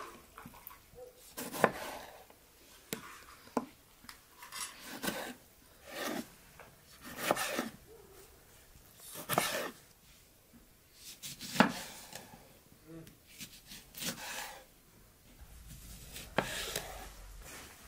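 Kitchen knife slicing tomato and lemon on a wooden cutting board: about a dozen separate cuts a second or two apart, each a short scraping stroke ending in a knock of the blade on the board.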